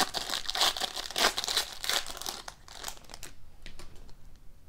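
Foil wrapper of a hockey card pack crinkling as it is torn open by hand. A little over three seconds in it fades to faint ticks and slides as the cards are handled.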